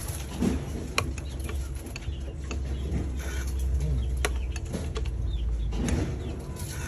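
A few sharp clicks and knocks over a low steady rumble, with faint high chirping in between.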